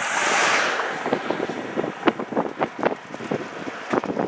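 Wind buffeting the microphone of a moving vehicle, with an oncoming pickup truck passing in a brief whoosh that swells and fades within the first second.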